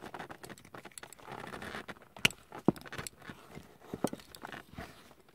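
Small plastic clicks and rustling from handling a plastic action figure as its snap-on helmet is pried off, with two sharper clicks a little past halfway.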